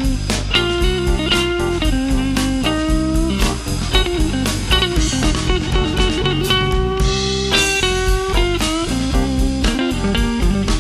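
Live blues band playing an instrumental passage: electric guitar lead line with held, bent and wavering notes over bass and a drum kit keeping a steady beat.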